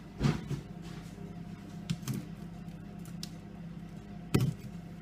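A spoon knocking and clicking against a bowl or scale while softened butter is scooped out to be weighed: three short knocks, the loudest just before the end.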